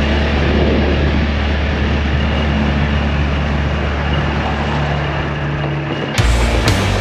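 Golf cart driving along, with a steady low wind rumble on the microphone; music with sharp drum hits cuts in near the end.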